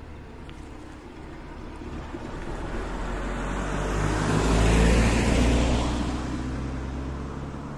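A red Škoda Octavia estate car driving past, its engine and tyre noise growing louder as it comes over the crossing, peaking as it passes about five seconds in, then fading away.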